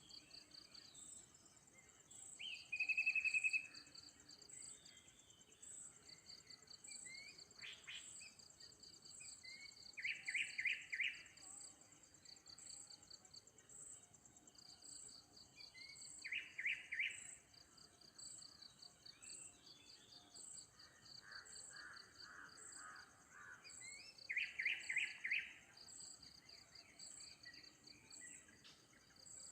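Birds chirping in short, rapid bursts of notes, three louder ones spread through, over a steady high buzzing and pulsing of insects.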